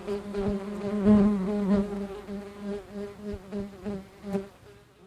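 A flying insect buzzing: a steady pitched drone that wavers and swells in loudness, then fades away near the end.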